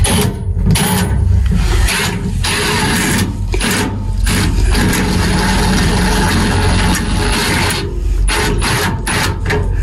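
Cordless Stealth Force impact driver running in several spells with short pauses, driving a bolt up through the toolbox into a Unistrut spring nut.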